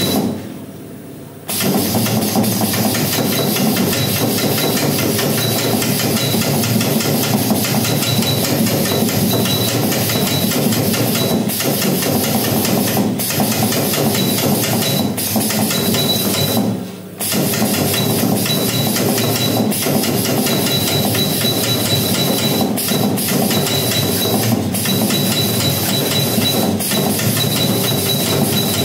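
A 15 kVA spot welding machine firing weld after weld on a steel strip between its copper electrodes, each weld a sharp crack every one to three seconds, over a steady loud hum and hiss.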